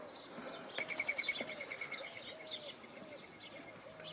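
Birds calling: a low, repeated cooing about every half second, with a rapid high trill for about two seconds starting near the one-second mark and scattered short chirps.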